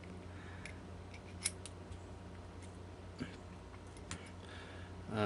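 A handful of faint, light clicks scattered over a steady low hum.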